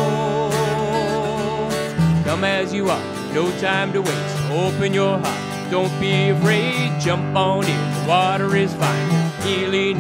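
Live acoustic worship song: acoustic guitars strummed over a cajon beat, with a voice holding a long wavering note at first and then singing the melody line by line.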